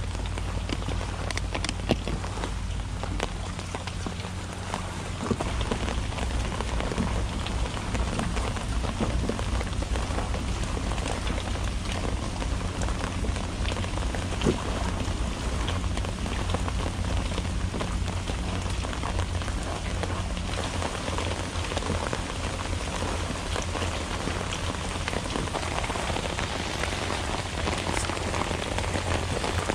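Rain falling, a dense patter of many small drops, over a steady low hum.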